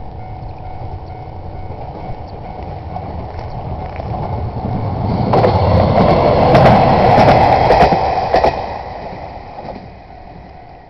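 A train passing over a level crossing: the rumble builds, peaks in the middle with a quick run of wheel clicks over the rail joints, then fades as it moves away.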